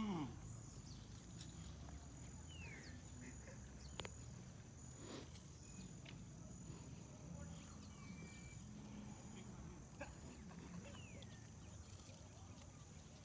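Quiet outdoor ambience: insects keep up a high, even pulsing trill, with a few short falling chirps and a single sharp click about four seconds in.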